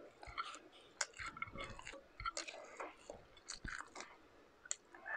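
Chewing and wet mouth smacks of a person eating shrimp and rice by hand, heard as irregular soft clicks and smacks. Near the end, light crackles as a cooked shrimp's shell is peeled apart by hand.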